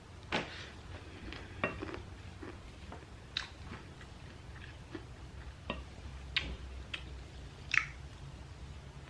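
Close-up eating sounds: a spoon clicking against a plate about six times at irregular intervals, between quiet chewing of chatpate, a crunchy puffed-rice snack.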